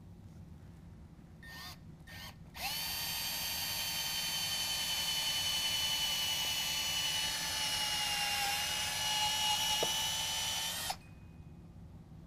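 Cordless drill with a 5/16-inch bit boring through a rubber snow plow cutting edge. The motor gives two short blips, then runs in a steady high whine for about eight seconds, sagging slightly in pitch partway through as the bit bites, and stops abruptly near the end.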